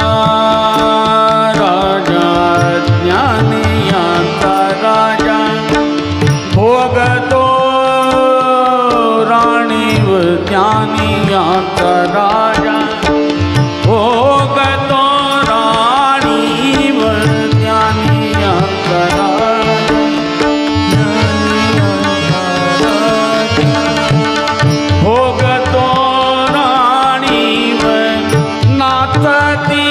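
Marathi abhang singing: a male voice holds long ornamented melodic runs and glides over a harmonium melody, steady tabla strokes and a tanpura drone.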